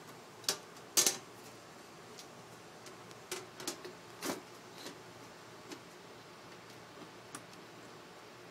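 Sheet-metal top cover of a rack server being set onto the chassis and slid into place: a series of short metallic clicks and clatters, the loudest about a second in, then lighter scattered clicks.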